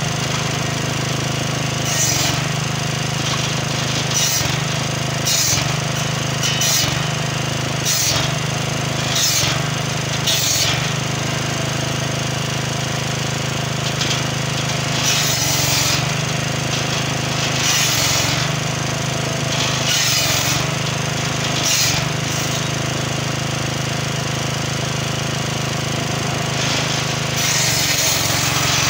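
Petrol-engine-driven circular saw with a carbide-tipped blade, its small engine running steadily while acacia logs are cross-cut into firewood rounds. Each cut is a short, harsh burst as the blade bites through the wood: about one every second or so at first, then longer cuts a couple of seconds apart, and one more near the end.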